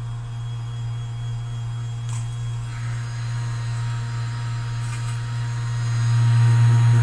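Handheld electric massager running against a patient's muscles with a steady low hum, growing louder about six seconds in.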